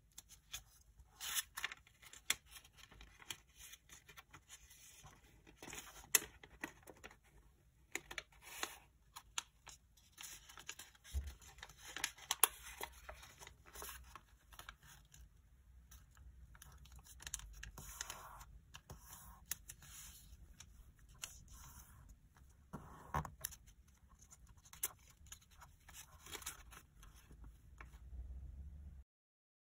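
A square of origami paper being collapsed along its pre-made creases by hand: irregular crisp rustling and crinkling with sharp little creasing clicks and snaps, cutting off suddenly near the end.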